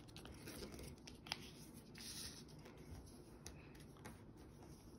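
Sheet of A4 printer paper being folded and creased by hand against a wooden tabletop: faint rustling with a few small clicks as fingers press the fold flat.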